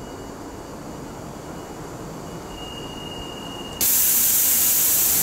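Central Line 1992 tube stock train standing at the platform, a low rumble with a faint high whine; about four seconds in, a sudden loud hiss of compressed air venting from the train.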